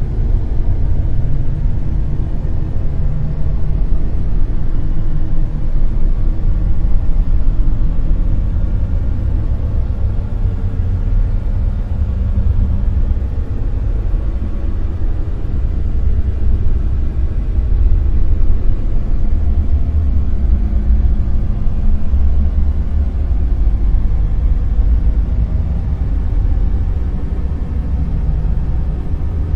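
Dark noise: a steady, deep rumbling hiss with most of its weight in the bass and little treble, swelling and easing slowly like a wave.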